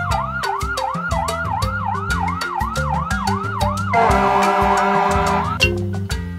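Fire engine siren sweeping up and down about three times a second, over background music with a steady beat. About four seconds in, a steady horn-like blast sounds with it for a second and a half, then the siren stops.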